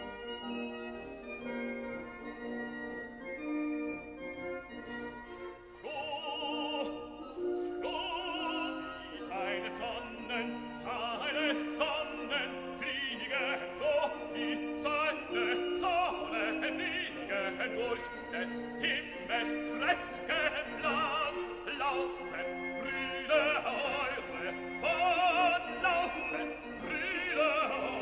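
Background music: operatic singing with a strong vibrato over an orchestral accompaniment. A quieter instrumental passage of held notes opens it, and the voice comes in about six seconds in.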